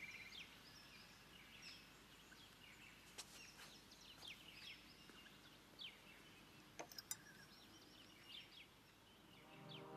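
Faint outdoor birdsong: scattered short, falling chirps, with a few sharp clicks about a third of the way in and again about two-thirds in. Soft music fades in near the end.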